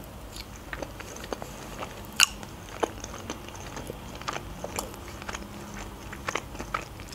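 Close-miked chewing of sticky chicken in sweet-and-sour sauce: irregular wet mouth clicks, with a couple of louder ones about two and three seconds in.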